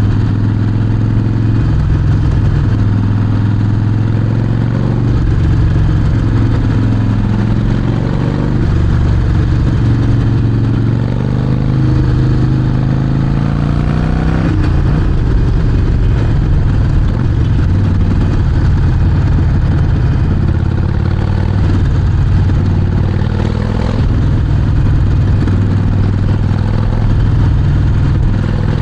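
Harley-Davidson Sportster Forty-Eight's air-cooled V-twin running through a Vance & Hines exhaust while riding, the revs climbing and dropping several times with the throttle.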